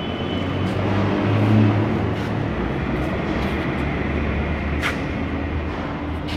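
Steady low rumble of heavy machinery running, with a sharp click about five seconds in and a smaller one near the end.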